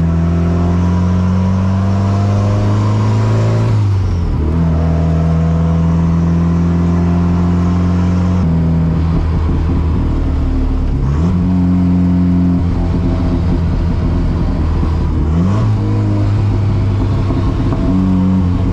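Big-turbo Volvo wagon's engine heard from inside the cabin while driving, running at a mostly steady note that dips and picks back up three times as gears are changed.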